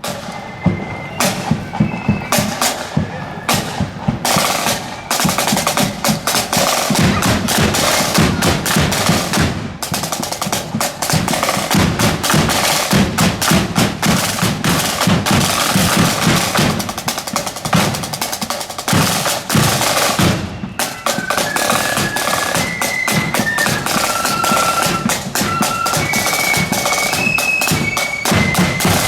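Marching band's drums playing: snare drums rolling over a beating bass drum, with a high melody of held notes joining about two-thirds of the way through.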